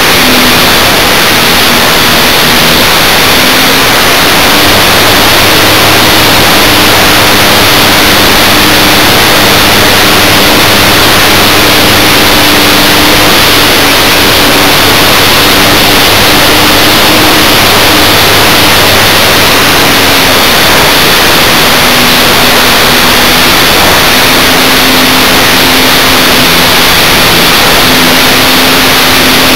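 Electric motor and propeller of a foam RC Cessna 182 in flight, heard through the plane's own onboard camera, buried in loud, steady wind hiss. The motor's hum drifts slowly up and down in pitch as the throttle changes.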